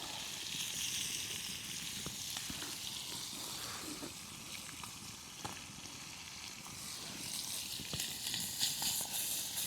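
Chicken frying in a pan over a campfire: a steady sizzling hiss, with a few sharp crackles near the end.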